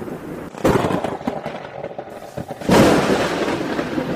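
Thunderstorm: a sharp thunder crack about half a second in, then a louder clap a little past halfway that rumbles on, over a steady hiss of rain.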